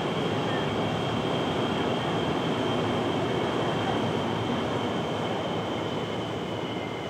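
A rail vehicle running past, heard as a steady rumble with a high, steady whine that fades a little near the end.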